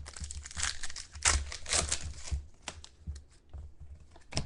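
Trading-card pack wrappers crinkling and tearing as packs are opened, in a run of rustling bursts that thins out about two and a half seconds in to a few light clicks and taps of cards being handled.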